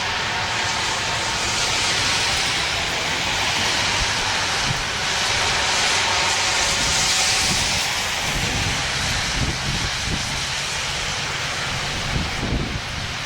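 Federal STH-10 rotating mechanical siren sounding the Attack signal, its tone swelling and fading as the rotating head sweeps past, at about 2 s and again around 6–7 s. Wind buffets the microphone underneath.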